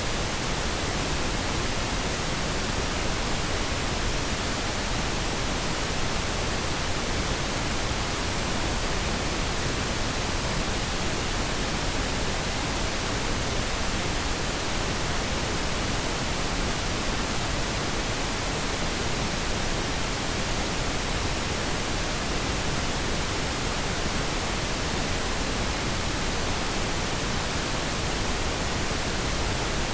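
Steady pink noise test signal for audio calibration: an even hiss spread across the whole frequency range, constant in level.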